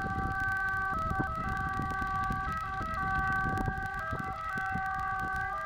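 Emergency vehicle sirens sounding, their pitch stepping back and forth between two tones, over a low rumbling noise.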